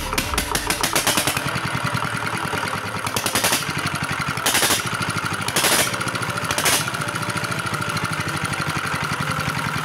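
R180 single-cylinder diesel engine catching on a single hand crank and running on at a steady, rapid firing beat, with four louder bangs about a second apart between about 3 and 7 seconds in. The injector-nozzle compression leak behind its hard starting and rough knocking has been sealed, and it now starts easily and runs without that noise.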